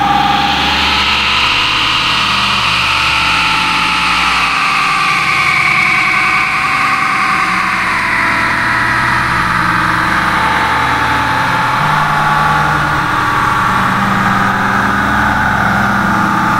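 Domestic cat purring loudly and steadily, close to the microphone: a continuous low pulsing rumble.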